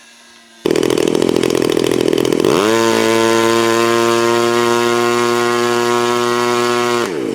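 A small engine starts suddenly and runs rough, then revs up about two and a half seconds in and holds a steady high-pitched drone. It winds down just before the end.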